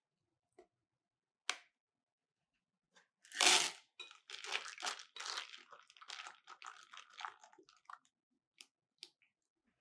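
Chocolate chips dropped into a glass bowl of thick oat batter about three and a half seconds in, then a wire whisk stirring the batter in quick, wet, scraping strokes for about four seconds. A few light clicks come before and after.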